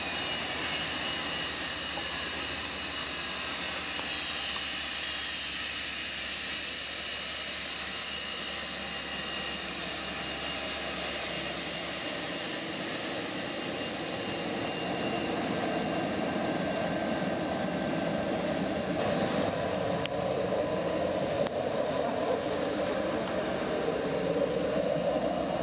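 BAe 146-200 jet with its four turbofan engines running, a steady high whine over a broad rush. Some of the whine falls in pitch over the first few seconds, and the sound grows slightly louder near the end.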